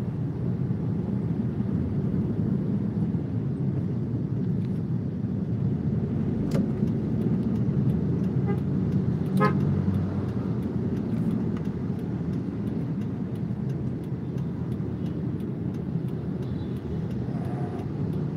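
Car driving in slow city traffic, heard from inside the cabin: steady engine and road rumble. A short horn toot from nearby traffic comes about halfway through.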